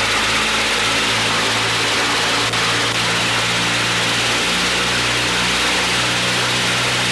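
Vintage aircraft's piston engine and propeller held steady at run-up power, 30 inches of manifold pressure for about 2,200 RPM, during the pre-flight power check.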